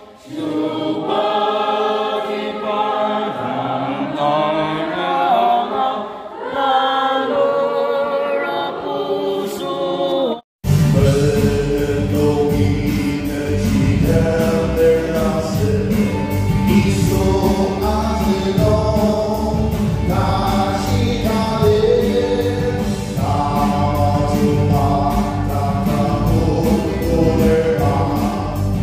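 A group of voices singing a gospel song together. About ten seconds in the sound drops out for an instant and comes back as fuller, louder group singing with a deep bass and a steady beat.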